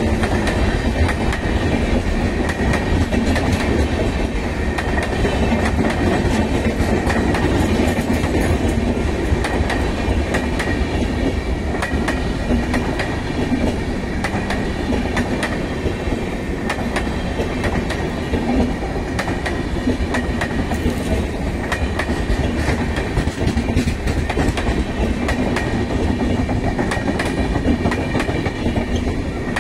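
Humsafar Express passenger coaches rolling past a few metres away: a steady rush of wheel and rail noise with a fast, continuous clickety-clack of wheels over the rail joints.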